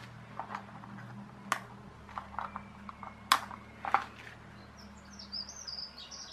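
A few sharp clicks from flush cutters snipping component leads on a circuit board and being set down, the loudest about three seconds in. Near the end a small bird chirps rapidly.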